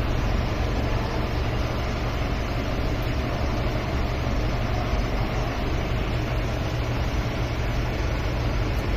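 Car engine idling steadily, with its cylinder 1 injector replaced to cure a misfire.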